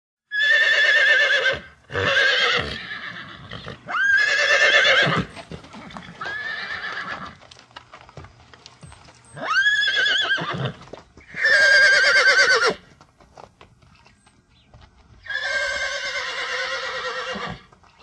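Horse neighing again and again: about seven whinnies, each a second or so long, with a shaking, wavering quaver, some louder than others. Faint knocks fill the gaps between calls.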